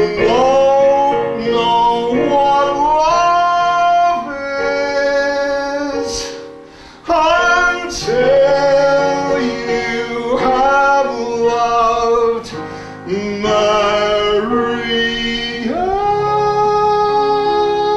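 Music: a man singing a melody in held, gliding notes over instrumental accompaniment, with a brief drop about six to seven seconds in.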